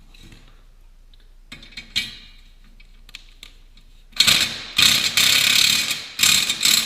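Metal tool work on plow hardware: a few light clicks, then about two seconds later a loud metallic rattling, ratchet-like noise in three close bursts.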